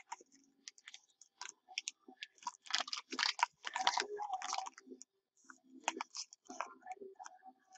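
Crinkling and clicking of plastic card packaging being handled and opened, in irregular bursts with a denser stretch about three to five seconds in.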